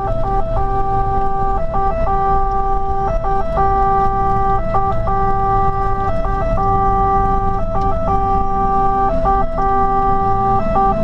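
Fire engine's electronic siren heard from inside the cab: a long low note broken about every second and a half by two quick higher notes, over the truck's engine drone.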